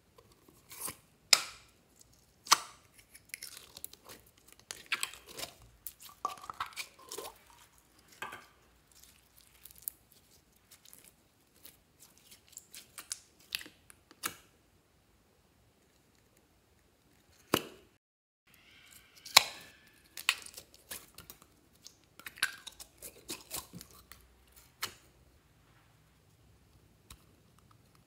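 Plastic slime tubs handled and opened by hand: a few loud snaps of lids, with sticky tearing, squishing and plopping of slime in between. There is a short quiet pause a little past the middle.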